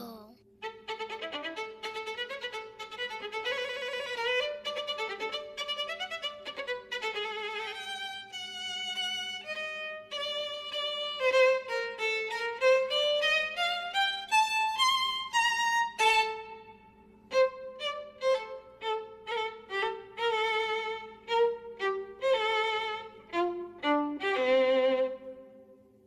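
Violin melody played over a steady held drone. The notes climb and grow louder in the middle, then turn short and separated in the second half.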